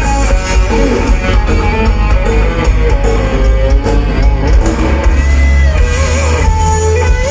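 Loud live band music led by guitar over a heavy bass.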